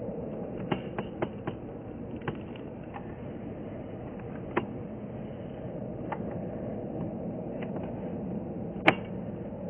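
Distant steady jet engine noise from an Airbus A350-900 taxiing on its Rolls-Royce Trent XWB engines, with several sharp clicks scattered through it; the loudest click comes near the end.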